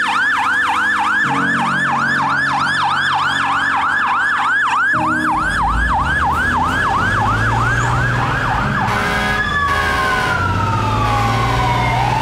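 Fire truck siren in fast yelp mode, quick rising-and-falling sweeps about four times a second. About nine seconds in it switches to a slow wail that falls steadily in pitch.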